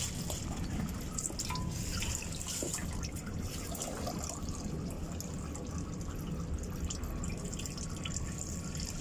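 Engine oil trickling and dripping from the oil filter mounting of a 2AR-FE engine as the filter is taken off during an oil change: a steady trickle with scattered small drips.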